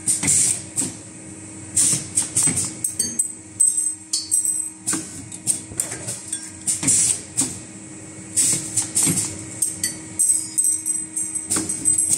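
Automatic flat-wire ring-making machine running as flat iron strip feeds through its rollers and is coiled into rings: a steady motor hum under irregular metallic clatter and short bursts of hiss about every second or two.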